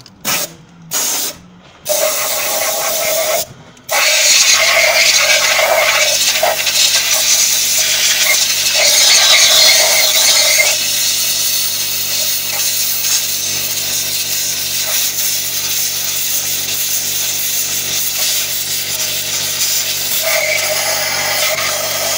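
A few short blasts of compressed air from an air line in the first seconds. Then, from about four seconds in, a hose-fed pneumatic tool runs steadily with a hiss, cleaning out the combustion chambers of a Morris Minor cylinder head. The hiss is loudest until about ten seconds in and then settles.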